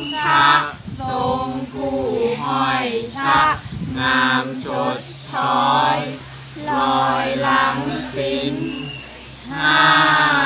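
A small mixed group of young men and women chanting Thai royal barge verse (kap he ruea) together in unison, unaccompanied, in short sung phrases with brief pauses between them.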